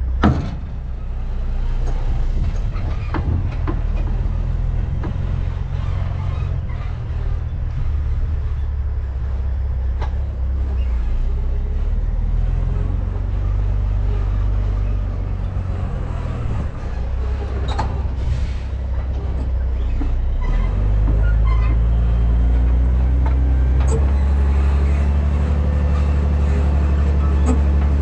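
Semi tractor's diesel engine running steadily under load while an end-dump trailer spreads gravel from its tailgate. There is a sharp clunk right at the start, and the engine speed rises about twenty seconds in.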